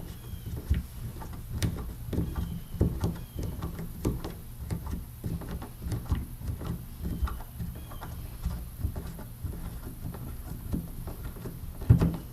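Scattered light knocks and rustles of hands and tools being handled, with a louder thump near the end.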